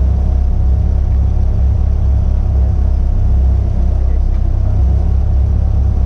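Caterham Seven's four-cylinder engine idling steadily while the car sits stationary, a constant low hum.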